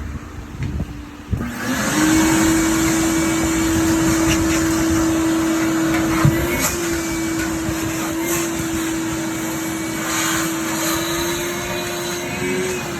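Vacuum cleaner switched on about a second in, its motor quickly rising to a steady hum as it sucks metal debris out of the tank, with a few sharp ticks along the way.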